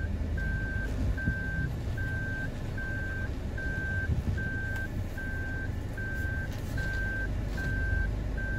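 Toyota Rush's in-cabin reverse warning beeper sounding with the automatic in reverse: a single high beep repeating at a steady pace, about one every 0.8 seconds, over the low rumble of the engine as the car backs up.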